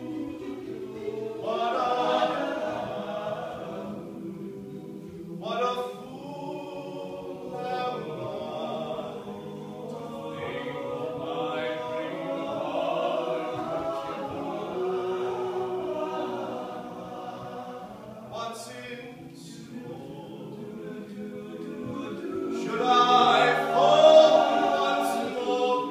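Male a cappella group singing in close harmony without instruments, swelling to its loudest near the end.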